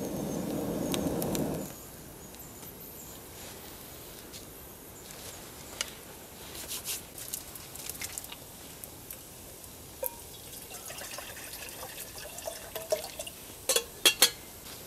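A man blows steadily on campfire embers for the first couple of seconds, a breathy rush. Then come faint scattered crackles and small handling clicks, and near the end a few sharp clinks, the loudest sounds here.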